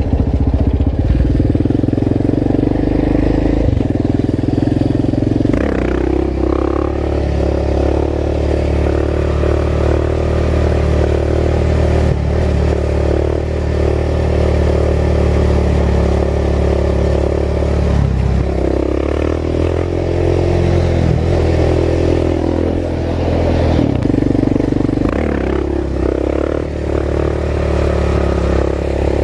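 Engine of a small off-road vehicle being ridden, running steadily, with changes in engine speed about six, eighteen and twenty-five seconds in as the rider shifts or changes throttle.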